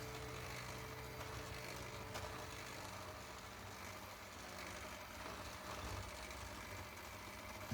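Electric hand mixer running faintly, beating flour into cookie dough.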